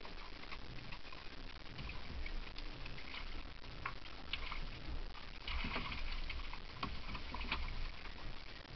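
Low rumble of wind on the microphone over water lapping against a small boat's hull, with scattered short clicks and knocks of fishing gear being handled; the busiest stretch comes a little past halfway.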